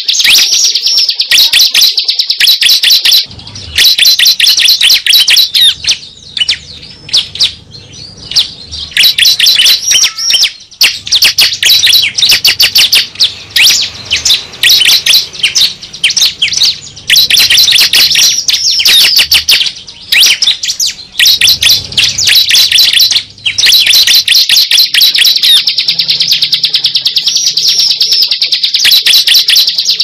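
Bar-winged prinia (ciblek) calling: loud, fast trains of high, sharp chirps, many per second, broken now and then by short pauses.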